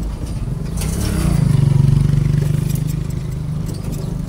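Motor vehicle engine speeding up about a second in, then running steadily and easing off, over road noise.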